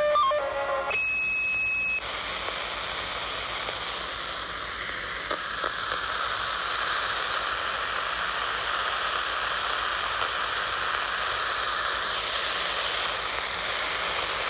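A scanner's speaker receiving the CB band on channel 5 (27.015 MHz): one steady high beep about a second long as a transmission ends, then a steady hiss of radio static from the open channel.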